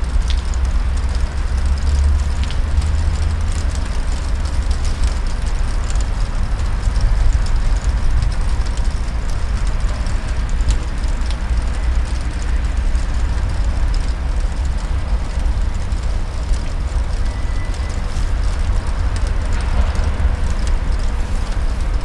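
ChME3T shunting diesel locomotive running at low speed with a steady deep rumble from its six-cylinder diesel engine, with scattered light clicks and clanks as it moves its tank wagons.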